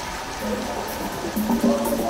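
Background music: pitched notes come in about half a second in, with light percussion joining near the end.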